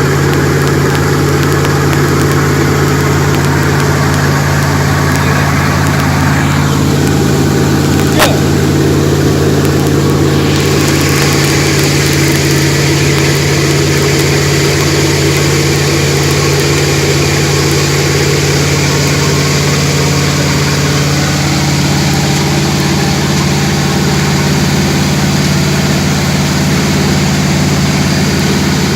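Jet boat engine running steadily with a low hum over a broad hiss; the hiss turns brighter about ten seconds in. A single sharp click comes about eight seconds in.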